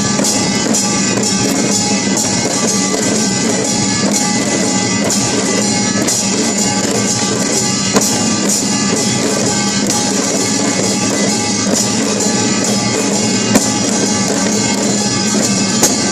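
Samulnori percussion ensemble playing steadily: small and large gongs (kkwaenggwari and jing) ringing over janggu hourglass drum and buk barrel drum, with a few sharper accented strikes near the end.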